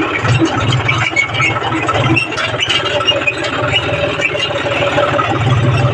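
John Deere 5050D tractor's three-cylinder diesel engine running steadily, heard from the driver's seat, with scattered short high squeaks over it.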